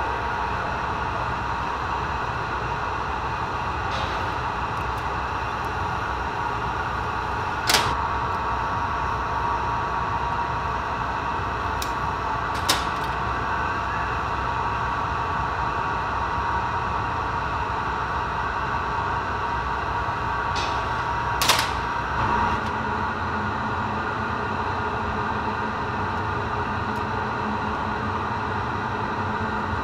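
Steady drone of the glassblowing workshop's furnace burner and blower, with a few sharp metal clinks of the glassblower's tools, three in all. A lower hum joins about three quarters of the way through.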